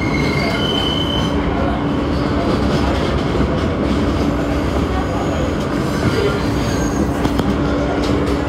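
New York subway train running on elevated track, heard from inside the car: a steady rumble and rattle of steel wheels on rail under a constant hum, with brief high wheel squeals around the start and again near the end.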